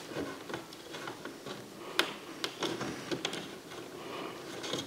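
Small scattered clicks and scrapes of plastic model railway sleepers being slid in under the rails of flexi-track by hand, with one sharper click about two seconds in.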